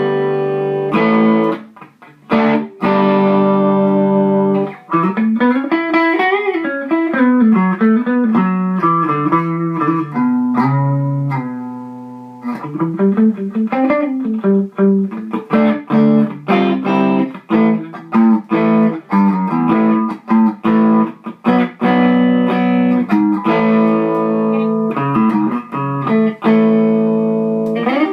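Les Paul-style electric guitar with high-output pickups played through a modded Fender Champ 600 amp, its gain switch flicked down for more gain and quicker breakup, into a Celestion G12H Anniversary 12-inch speaker. It plays ringing chords with two stretches of bent single-note lead lines in the middle.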